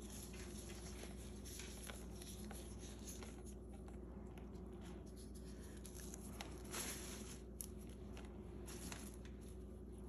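Faint rustling of rose petals being plucked from the flower and dropped onto a sheet of paper, with a couple of light clicks about two-thirds of the way through, over a steady faint hum.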